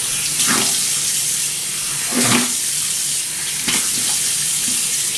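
Water running steadily from a sink tap, with a few brief louder moments.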